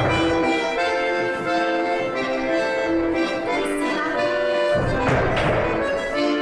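Accordion playing live dance accompaniment: a melody over held chords, with fuller low chords swelling in near the start and again about five seconds in.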